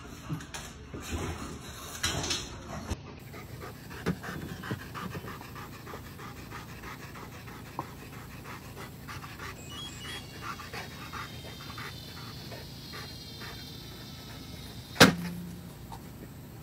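Large dog panting hard and fast. About a second before the end, an automatic dog ball launcher fires with one sharp, loud crack.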